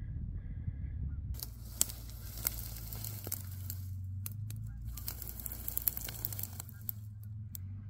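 A steady low engine hum, with scattered crackles and clicks over it from about a second and a half in.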